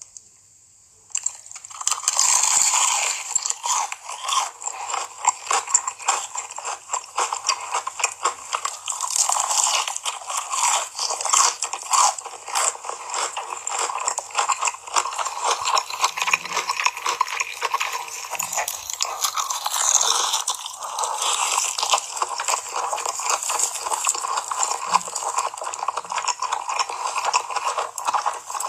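Close-miked eating sounds: a person biting and chewing food. A dense, unbroken run of small clicks and crackles starts about a second in.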